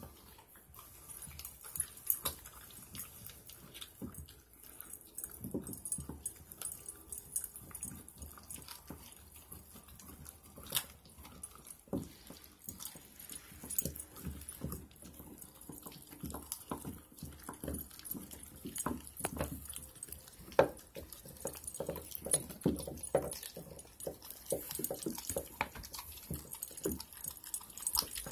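Husky puppy chewing and gnawing a raw chicken drumstick, bone and all. The sound is irregular wet clicks and crunches, coming thicker in the last third.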